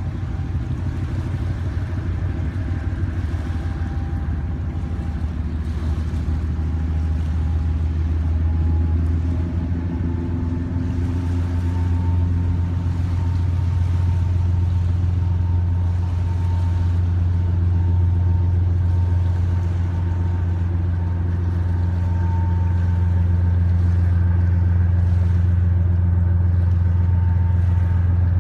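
Large car ferry's engines running with a deep steady drone as the vessel pulls away from the dock, slowly growing louder. A faint higher whine rises slightly in pitch over the first half.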